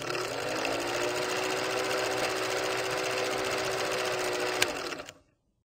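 Film projector sound effect: a fast, even mechanical clatter with a motor hum that rises in pitch as it starts up and then holds steady. There is one sharp click near the end, and the running sound dies away about five seconds in.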